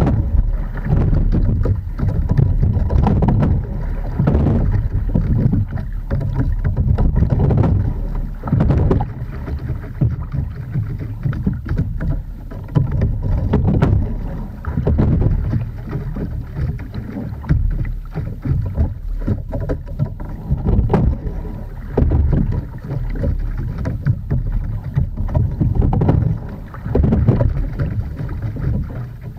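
A single scull being rowed: water rushing around the hull and oars, surging with each stroke about every two seconds, with a few clicks from the oars and low wind rumble on the microphone.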